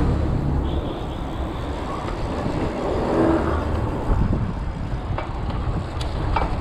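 Wind rushing over a handlebar-mounted action camera's microphone, with low rumble from the bicycle rolling on asphalt. Two sharp clicks come near the end.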